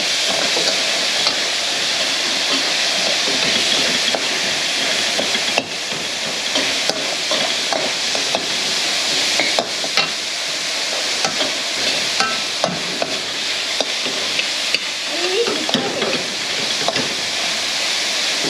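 Chicken and vegetables stir-frying in sauce in a wok over a gas flame: a steady sizzle, with frequent short clicks and scrapes of metal tongs and spatula against the wok.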